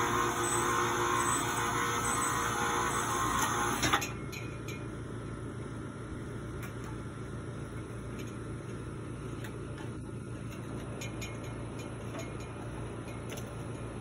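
The electric winch motor of a DIY ladder hoist runs steadily as it moves the shingle-loaded platform, then stops abruptly with a click about four seconds in. After that a low steady hum remains, with a few light knocks as someone climbs the aluminium ladder.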